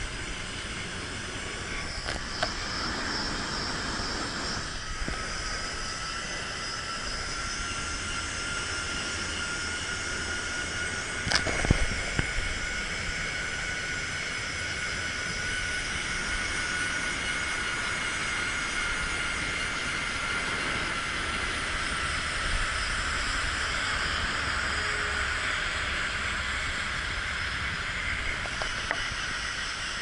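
Zip-line trolley pulleys running along the steel cable: a steady whine with a high tone that climbs slightly over the first several seconds and then holds, over a rush of wind. A single brief knock about eleven seconds in.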